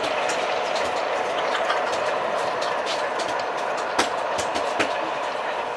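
Class 45 'Peak' diesel locomotive, its Sulzer twin-bank 12-cylinder engine running steadily as it moves along the track. Sharp wheel clicks over the rail come through the engine sound, the loudest about four seconds in and another just before five.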